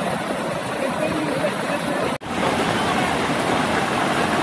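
Floodwater rushing across a highway as a steady, noisy rush. It drops out for an instant about two seconds in, then carries on the same.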